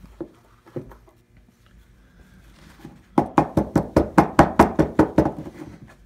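Sharp knocks on a metal bullet mold holding freshly cast zinc: two single knocks, then a quick run of about a dozen knocks, roughly five a second, fading near the end.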